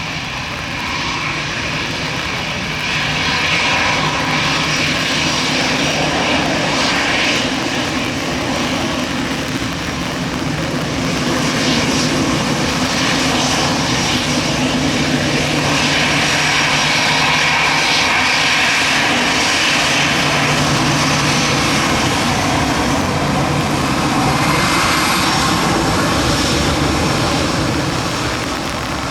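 Airbus A319 jet engines running: a steady rushing noise with a low hum under it, growing a little louder about three seconds in.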